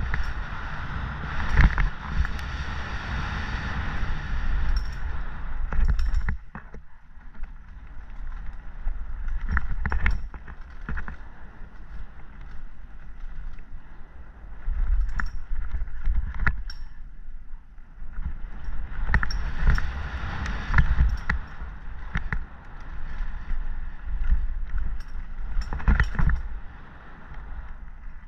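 Mountain bike descending a dirt trail at speed: tyres rolling over packed dirt and a wooden boardwalk, with the bike clattering and knocking sharply over bumps. Wind rumbles on the microphone throughout. It goes quieter for a long stretch in the middle, then louder again.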